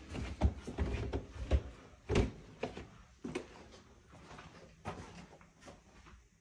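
A run of knocks and thumps from interior doors being pushed open and handled, loudest in the first two seconds or so, then fainter clicks and knocks.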